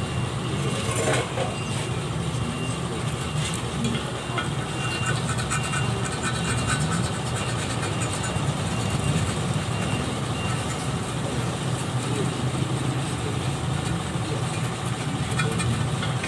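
A motor running steadily, a low even drone. A few light knocks, about a second in and again a few seconds later, come from a tire tool working the tyre bead against the steel wheel rim.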